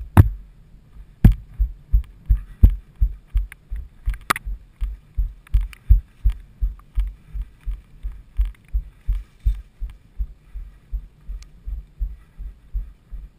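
Rhythmic thuds of running footfalls jolting the body-worn action camera, about two and a half a second, with a few sharper knocks in the first few seconds.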